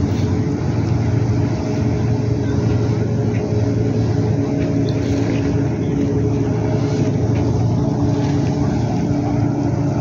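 Steady drone of boat engines out on the water, a low rumble with a faint pitched hum that comes and goes.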